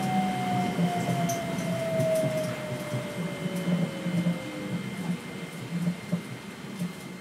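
New Shuttle rubber-tyred people-mover train slowing down, heard from the cab: a motor whine glides steadily down in pitch over about five seconds, while the running rumble fades.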